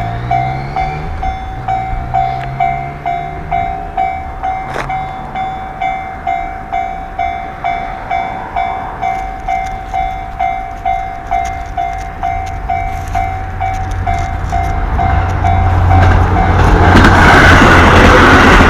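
Japanese level-crossing warning bell ringing in a steady, even clang of about two strikes a second. A diesel train then approaches and passes, its rumble and rail noise growing loud over the last few seconds and covering the bell.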